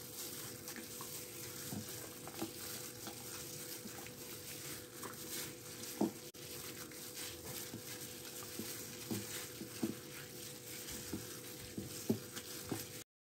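Hands mixing raw chicken pieces into a wet spice marinade in a glass bowl: a steady wet squishing and crackling with scattered soft taps. It cuts off suddenly near the end.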